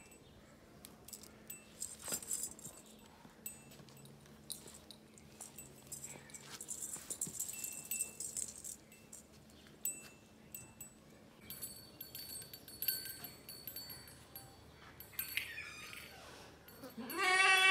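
Faint scattered clinks and jingles as decorations are fastened on a goat's legs, then near the end a goat bleats loudly once, the call falling in pitch.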